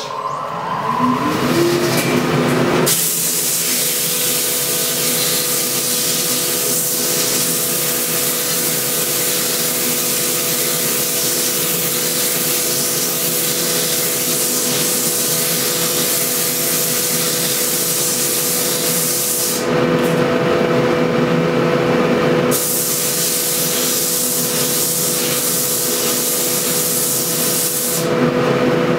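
A wood lathe and a dust collector come up to speed with a rising hum. About three seconds in, a loud, steady rushing hiss starts over their hum as sandpaper is held against the spinning walnut rolling pin. The hiss drops away twice for a few seconds, about two-thirds of the way through and near the end, while the machines keep humming.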